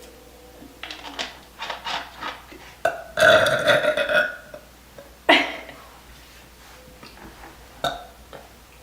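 A girl burping after drinking Vanilla Coca-Cola. A few small burps lead into one long, loud burp about three seconds in, then come a short burp a second later and a fainter one near the end.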